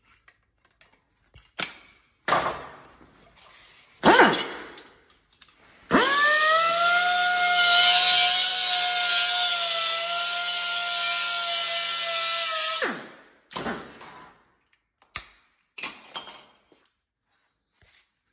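A few sharp metal knocks, the loudest about four seconds in, then a TIG welding arc buzzing steadily for about seven seconds with a hiss over it; it starts with a quick upward sweep and cuts off sharply. A few lighter knocks follow.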